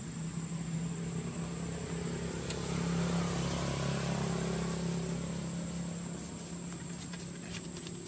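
A motor vehicle engine running steadily nearby, growing louder about three seconds in and then slowly fading, as if passing by.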